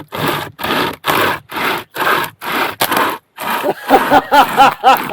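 Hand saw cutting through a log, about two strokes a second. In the last two seconds the strokes come quicker, each with a short rising-and-falling squeal.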